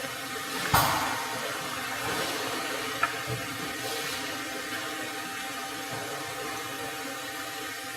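HF plastic welding machine running with a steady hiss. Under a second in comes a sudden loud burst of hiss that fades over about a second, and about three seconds in there is a short sharp click.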